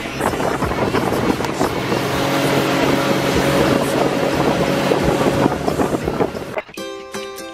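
A tour boat's motor runs steadily while the boat is under way, with water and wind rushing past. Near the end it cuts abruptly to plucked-string background music.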